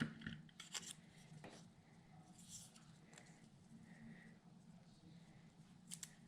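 Faint rustling and a few light clicks of small paper die-cut pieces being handled, over near-silent room tone.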